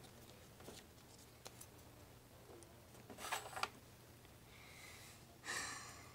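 Faint handling noises of small plastic toy pieces and a card being moved about: light clicks and soft rustles, with a louder rustle about three seconds in and another near the end.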